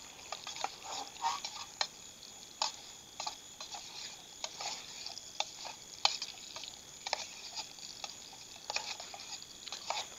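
Sausage frying in oil in a steel canteen cup, with a light sizzle and irregular clicks and scrapes of metal against the cup's sides as the pieces are stirred.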